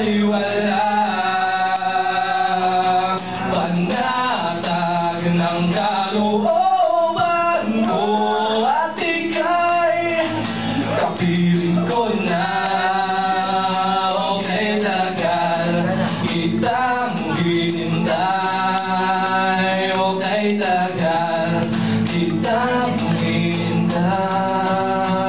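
A man singing into a microphone, accompanied by an acoustic guitar; the voice holds long notes and slides between them.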